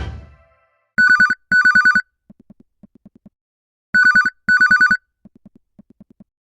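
Retro telephone ringtone in a double-ring pattern: two short trilling rings, a pause of about two seconds, then two more. Fainter quick pulses follow each pair.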